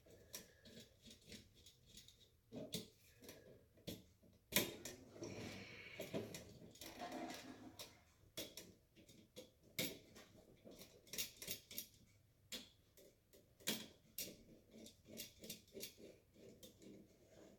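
Faint, irregular clicks and small scrapes of hand tools and electrical wires being handled at a wall switch box as the cable is split apart.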